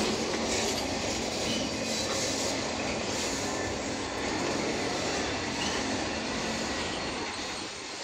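Norfolk Southern autorack freight cars rolling slowly past on the rails: steady wheel-and-rail rumble with a few short, high wheel squeals. The noise eases slightly near the end.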